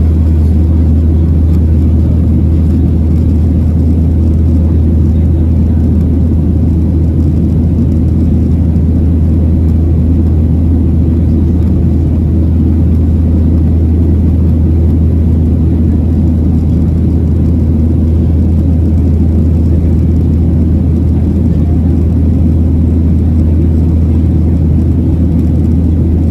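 Cabin noise of a Boeing 737-800 in the climb, heard from a seat beside the wing: its CFM56-7B turbofans and the rushing airflow make a steady low drone under an even rush of air, with no change throughout.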